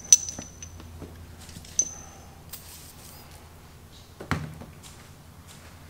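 Light metal clinks from engine parts and hand tools being handled, each with a short high ring: two at the start and one about two seconds in. A dull thump follows about four seconds in, over a low steady hum.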